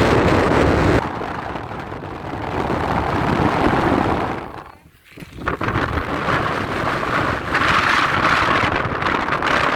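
Wind buffeting the microphone in loud, rising and falling gusts. It drops away almost completely for a moment about five seconds in.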